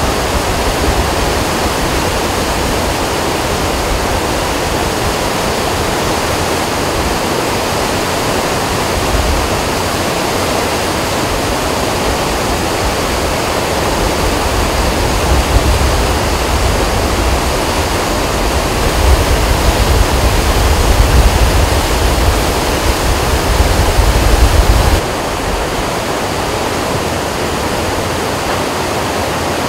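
A muddy river in flood rushing past at high speed, a steady loud rush of fast water carrying debris. A deeper rumble swells through the middle and drops away suddenly near the end.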